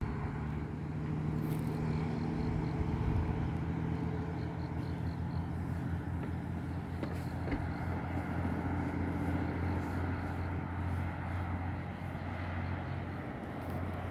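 Steady low drone of motor vehicle engines and traffic, with an even hum underneath a wide outdoor hiss.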